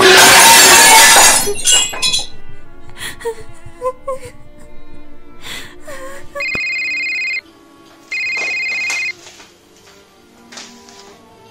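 Plates smashing on a hard floor: a loud crash of breaking crockery lasting about a second and a half, with pieces clattering after it. A woman then sobs. Past the middle, a phone rings twice with an electronic ring, each ring about a second long. Soft background music runs throughout.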